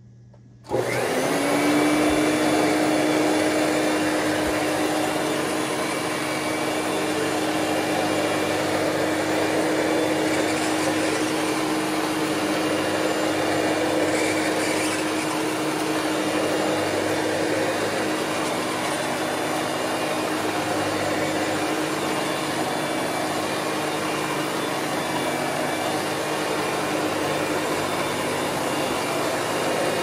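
Hoover Celebrity QS canister vacuum switched on under a second in: its motor spins up quickly to a steady whine and runs on, with the power nozzle running on carpet. The motor's bushings have been freshly lubricated.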